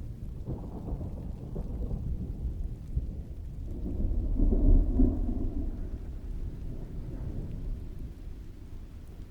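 Distant thunder rolling low under steady rain, swelling to its loudest about halfway through and then slowly dying away.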